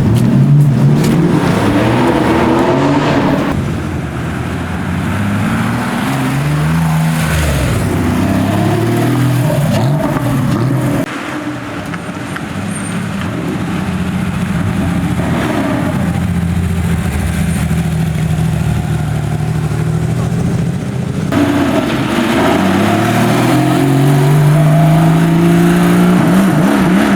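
Supercar engines revving and accelerating, in several short clips cut together; the pitch climbs in long sweeps as the cars pull away, with a long rising run near the end.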